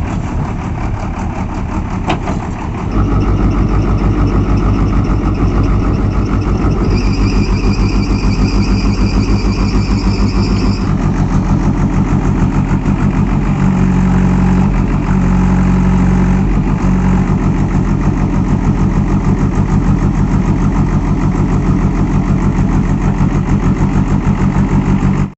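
JCB backhoe loader's diesel engine running with an even, fast pulse. It gets louder about three seconds in, and a higher whine rides over it for a few seconds near the middle. It cuts off suddenly at the end.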